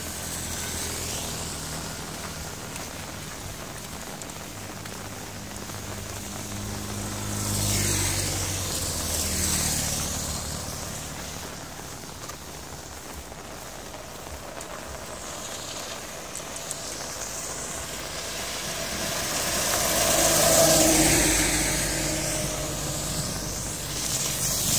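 Motor vehicles passing on a rain-wet road, their tyres hissing on the wet surface over a low engine hum; two passes swell and fade, around eight seconds in and again around twenty-one seconds, with another vehicle coming up near the end.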